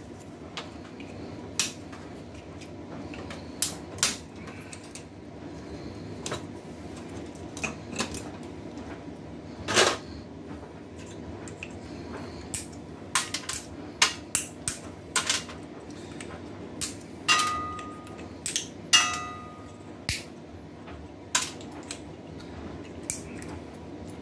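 Pliers and loose metal parts clicking and clanking against a steel PC tower case as it is pulled apart: irregular sharp clicks, a louder knock about ten seconds in, and two short metallic rings a little past two-thirds of the way through, over a low steady hum.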